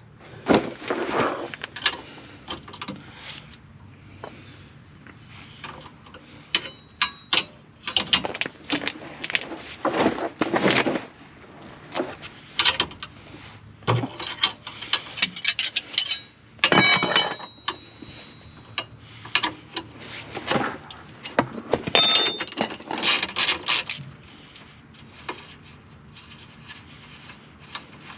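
Hand ratchet and socket wrench clicking in short irregular bursts, with metal clinks of tools and sockets, as the lower control arm bolt is worked loose.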